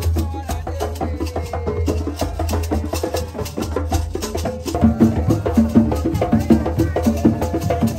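Traditional hand drums and clicking percussion playing a fast, steady dance rhythm. About five seconds in, a deeper drum stroke comes in more strongly.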